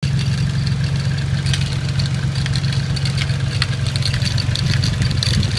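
1992 Nissan 240SX's 2.4-litre four-cylinder engine idling steadily with an irregular rattle over it, which the owner suspects comes from a bearing or sticking valves.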